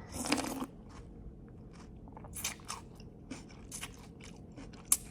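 Close-miked mukbang eating: a bite at the start, then scattered crisp crunches of chewing raw vegetables, with one sharp click just before the end.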